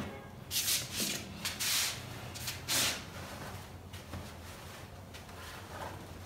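Padded fabric seat liner of a baby swing bassinet being pulled and rubbed off its frame as it is detached: a few short rasping bursts in the first three seconds, then quieter handling.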